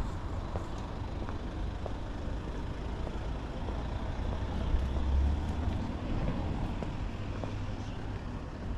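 City street noise with road traffic: a steady low rumble that swells briefly about five seconds in.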